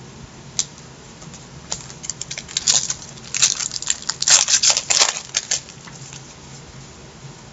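Trading cards handled and shuffled by hand: a run of crisp rustles and clicks of card stock, busiest in the middle few seconds, with a few single clicks before and after.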